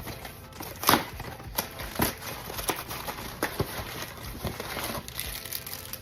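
Snack packages and drinks being handled and set down: wrapper crinkling with several knocks, the loudest about a second in, over background music.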